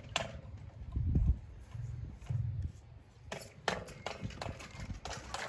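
Deep, hollow, drum-like thuds from down inside the well casing as the submersible pump's drop pipe is worked up through it: three low booms in the first three seconds, then a few sharper knocks.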